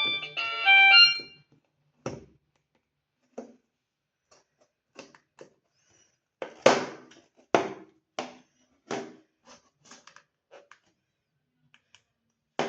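The tail of a Nomi i2830 phone's ringtone melody stops about a second in. It is followed by scattered short clicks and knocks at irregular intervals, the loudest about six and a half seconds in.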